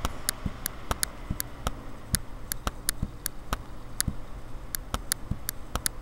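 Computer mouse button clicking repeatedly, about three sharp, irregular clicks a second, over a low steady hum.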